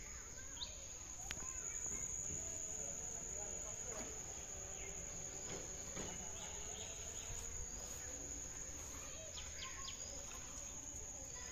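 Insects keeping up one steady, high-pitched drone over quiet pondside ambience, with a few faint bird chirps.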